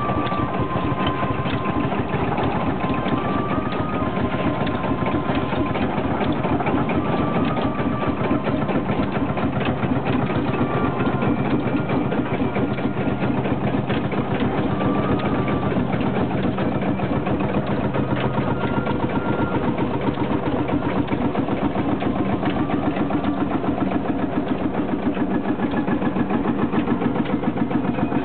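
1954 Field Marshall Series 3A tractor's single-cylinder two-stroke diesel engine running with a fast, even beat, which sounds more distinct near the end.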